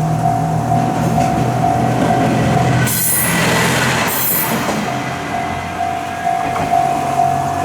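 Japanese level-crossing warning bell ringing its steady repeated kan-kan while a train passes over the crossing. About three seconds in, a loud rush of train noise with a high hiss covers the bell for nearly two seconds, then the bell is heard again.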